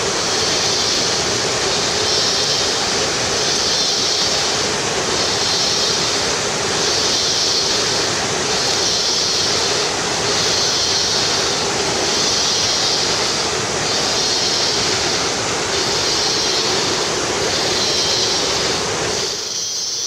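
Steady rush of La Fortuna Waterfall's falling water. Over it, a high-pitched sound pulses about every second and a half.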